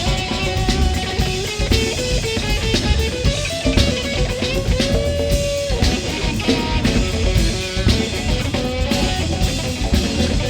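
Live rock band playing an instrumental passage without vocals: electric guitar over bass and drum kit. A guitar note is bent up and held about five seconds in.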